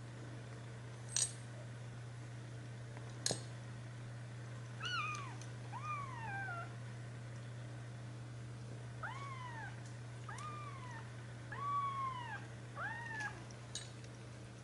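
Four-week-old Birman kittens mewing: about seven short, high mews, each rising then falling in pitch, through the second half. Two sharp clicks come before them, and a steady low hum runs underneath.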